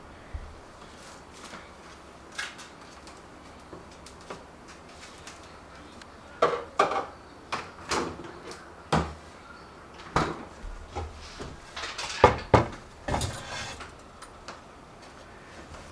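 Kitchen things being handled: a string of separate clinks and knocks of dishes, utensils and storage drawers or cupboards. They come sparsely at first and bunch together in the second half.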